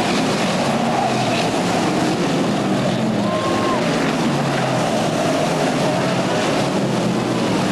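Several stock car engines running on the race track: a steady, loud drone whose pitch wavers as the cars circle.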